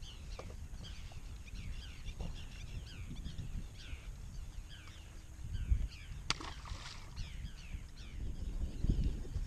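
A chorus of birds giving many short, falling chirps over wind rumbling on the microphone, with one sharp click a little past the middle.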